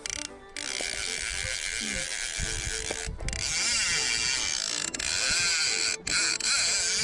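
Click-and-pawl fly reel screaming as a hooked Atlantic salmon runs and strips line off it, starting about half a second in and stopping for an instant twice.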